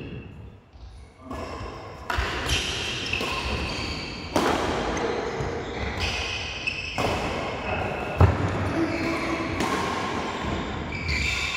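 Doubles badminton rally: rackets striking the shuttlecock in sharp knocks every second or two, the sharpest a little past two-thirds of the way through.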